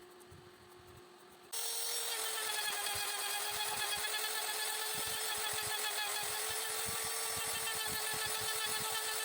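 Electric power tool switching on about a second and a half in, then running at a steady speed with an even whine.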